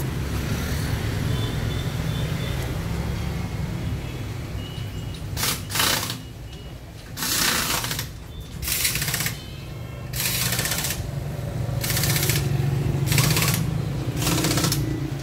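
Short bursts of a rapid rattling machine noise, coming roughly once a second from about five seconds in, over a steady low hum.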